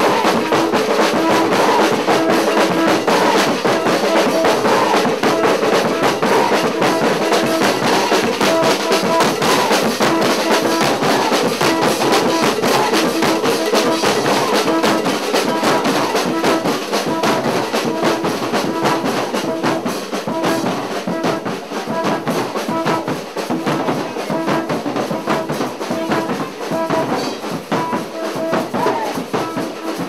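Live carnival band: drums beating a fast, steady rhythm, with horns playing a short repeated riff over them. It gets a little quieter after about halfway.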